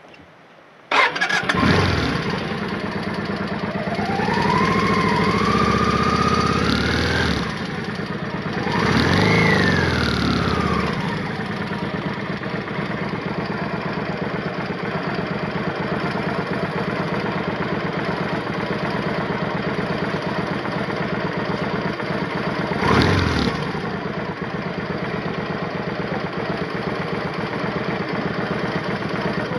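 Motorcycle engine started about a second in and revved up and down as it pulls away, then settling into a steady idle for the rest of the time, with one brief blip of the throttle a little past two-thirds through.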